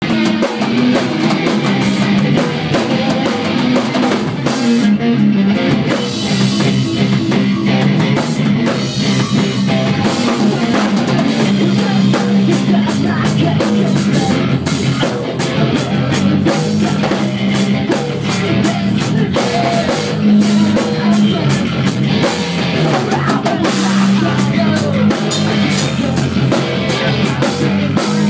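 Live rock band playing loud: electric guitar over a drum kit keeping a steady beat.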